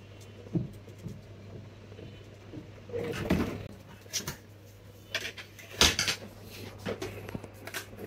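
Handling noise at a wooden workbench: a laptop motherboard and small tools being picked up, moved and set down, giving a scatter of short knocks, taps and rustles, busiest from about three seconds in, the loudest about six seconds in. A steady low hum runs underneath.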